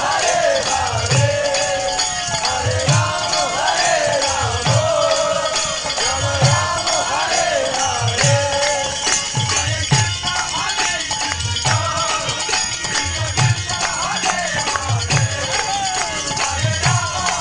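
Devotional kirtan: chanting voices over a low drum beat that comes roughly every two seconds, with hand cymbals or rattles jangling steadily.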